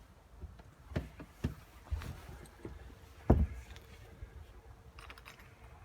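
A few scattered knocks and clicks, the loudest one about three seconds in, with fainter ticks near the end.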